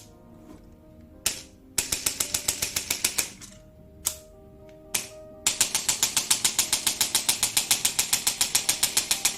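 Electric chiropractic adjusting gun, set to 350 N, firing its piston in rapid repeated clacks about ten a second. There is a short burst about two seconds in and a couple of single clicks, then continuous firing from about five and a half seconds in.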